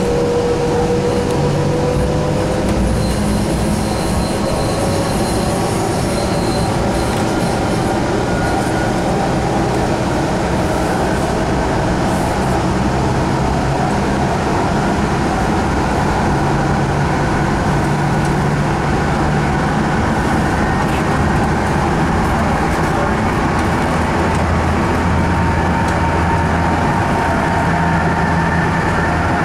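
Sound Transit Link light rail train heard from inside the passenger car while running: a steady rumble of wheels on rail, with faint whining tones that slowly shift in pitch.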